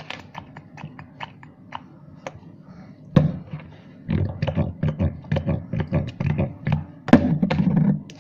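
Slime mixture being stirred in a container: light scattered taps at first, then from about three seconds in a loud, fast run of clicking strokes.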